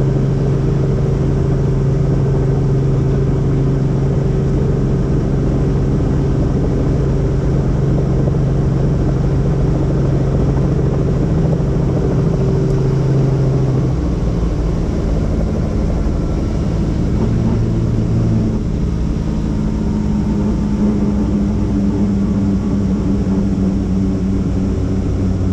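Helicopter in flight: a loud, steady engine and rotor drone. Its low hum changes pitch about halfway through.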